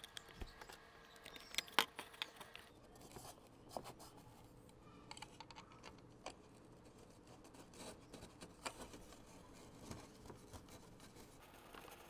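Faint scattered clicks and light scrapes of a brass cabinet pull and its screws being handled and fitted through the holes of a plywood jig, to check the screw spacing.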